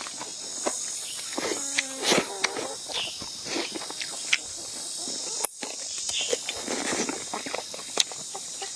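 Crickets or other insects chirring steadily and high-pitched, over scattered clicks and taps of eating. A short pitched call sounds about two seconds in.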